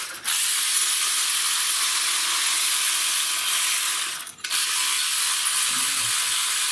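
Air ratchet running on a bolt: a steady, loud hiss with the ratcheting mechanism. It stops briefly about four seconds in, then runs again.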